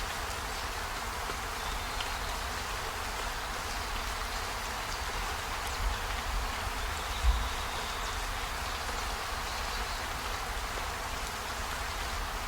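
Steady rain: an even hiss with scattered faint drop ticks over a low rumble, and two low thumps about six and seven seconds in.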